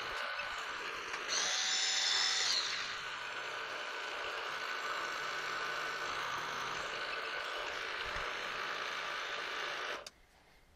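Milling machine spindle running steadily while the workpiece is touched off at each end to find its center. A louder, higher whine joins for about a second and a half, a second or so in, and the running stops abruptly just before the end.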